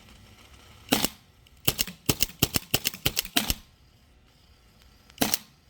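Autococker paintball marker firing: a single shot about a second in, then a fast string of about a dozen shots, and one more shot near the end, as the hopper is emptied.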